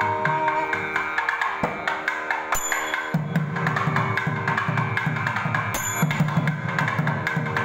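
Thavil drum playing a fast, dense rhythmic passage of deep strokes and sharp clicks over a steady drone. A held nadhaswaram note fades out in the first second before the drumming takes over.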